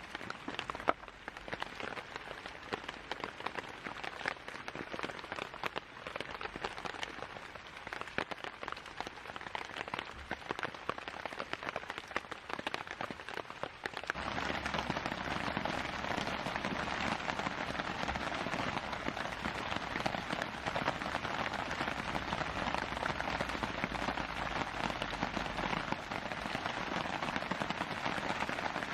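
Rain falling steadily, with many scattered sharp pattering clicks; about halfway through it abruptly becomes louder and denser.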